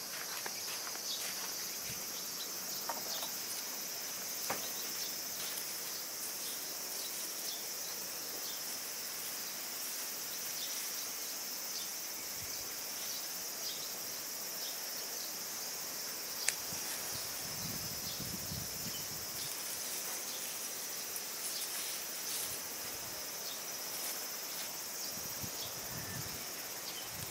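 Steady high-pitched buzzing chorus of summer insects. Scattered light clicks and a brief rustle of plants occur, with one sharper click about two-thirds of the way through.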